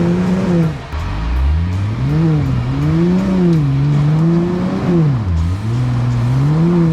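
An off-road 4x4's engine revving up and down again and again under load as it tries to climb a rock ledge. The revs surge and fall about once a second, with deeper drops about a second in and again near the end.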